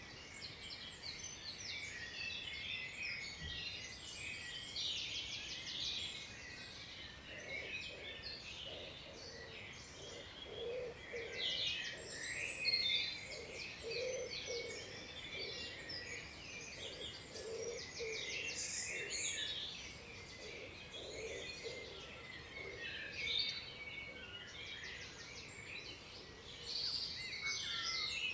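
Many songbirds singing at once: dense, overlapping chirps and fast trills. From about eight seconds in, a low call repeats steadily underneath them.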